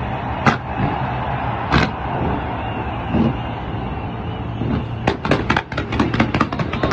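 Fireworks going off: two sharp bangs in the first two seconds over a steady rushing noise, then from about five seconds in a fast volley of bangs, several a second.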